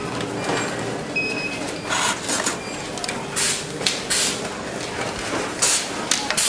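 Assembly-floor noise in a power bank factory: a steady machine hum with several short hisses scattered through it.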